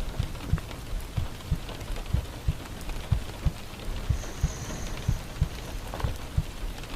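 Steady rain falling, with a slow heartbeat underneath: low thumps in pairs about once a second.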